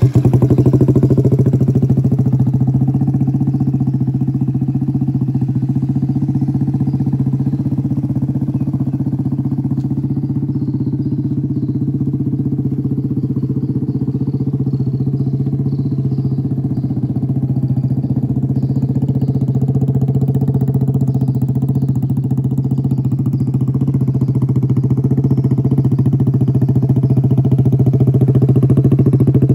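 Kawasaki Z125 Pro's 125 cc single-cylinder four-stroke engine idling steadily through an aftermarket exhaust, getting a little louder near the end.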